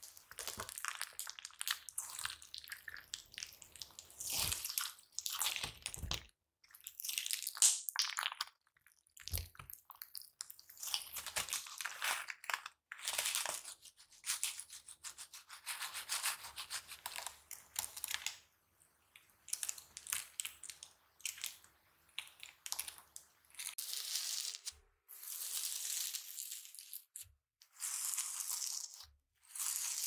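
Slime being poked, pressed and squeezed by fingers, making crisp crackling and squishing sounds in quick bursts. Short breaks fall between one slime clip and the next.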